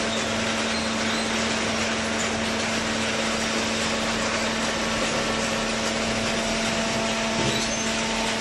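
Hydraulic baler machine running: a steady, noisy machine sound with a constant low hum.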